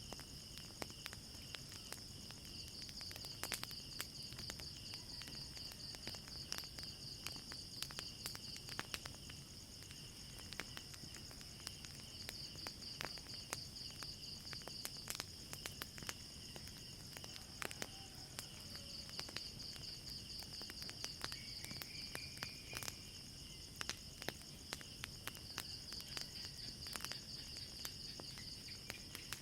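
Crickets chirping steadily in a fast pulsing trill, with a wood fire crackling in irregular sharp pops.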